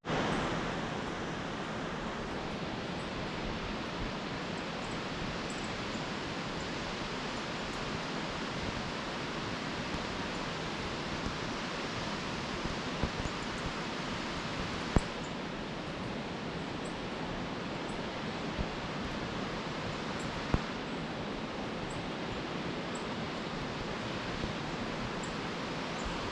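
La Chorrera waterfall's steady rush of falling water, an even hiss with no pauses, broken by two brief knocks about halfway through and a few seconds later.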